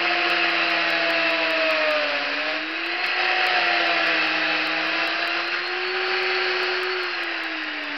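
Chainsaw running at high revs while carving into a wood block. Its pitch wavers slightly as the cut loads it, then sinks and the sound eases near the end.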